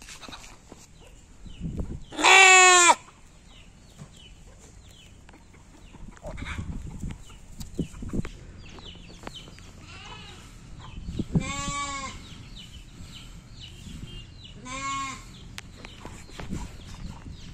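Bannur sheep lambs bleating three times: a loud, quavering bleat a couple of seconds in, then a second about nine seconds later and a shorter, fainter third about three seconds after that.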